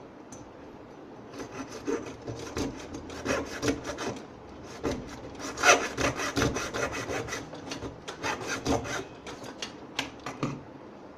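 A hand tool rasping against the epoxy-sealed plastic casing of an ultrasonic humidifier, in many quick, irregular scraping strokes that work the casing open. The strokes start about a second in, pause briefly about halfway, and stop shortly before the end.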